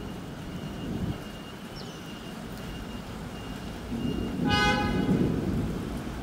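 A low rolling rumble of thunder that swells about four seconds in. A short horn toot sounds about four and a half seconds in, over a thin steady high whine.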